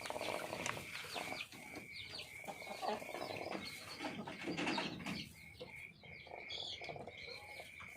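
Sick chicken snoring: irregular, rattly, wheezy breaths from a hen with the respiratory cold the keeper calls 'ngorok pilek', here rather severe. A steady high-pitched trill runs underneath.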